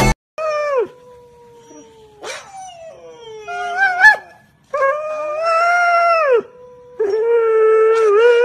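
Huskies howling: a series of long pitched howls, some held level and some rising or falling, with two voices overlapping at times.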